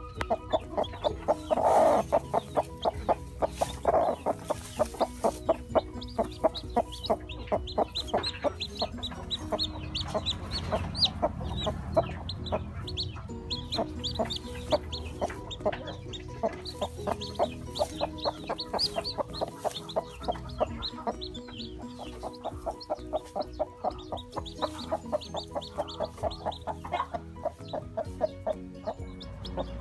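A hen clucking among her chicks' peeping, a dense run of short calls several a second, loudest about two and four seconds in.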